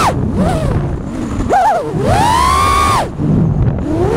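FPV quadcopter's brushless motors whining, the pitch rising and falling with the throttle. The whine drops away at the start, comes back in a short burst about a second and a half in, holds a high steady whine, cuts off suddenly about three seconds in over a low rumble, and climbs again near the end.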